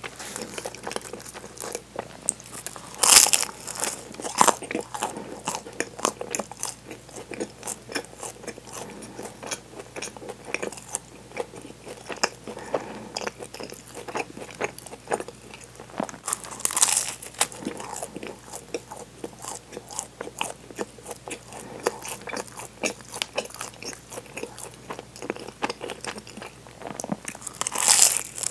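Crunching bites into a flaky chocolate pastry, its crisp layers crackling, with chewing in between. Three louder crunchy bites stand out: a few seconds in, about halfway, and near the end.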